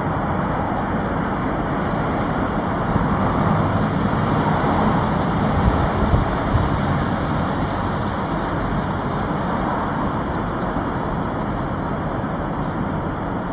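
Steady rushing, rumbling noise, a little louder in the middle.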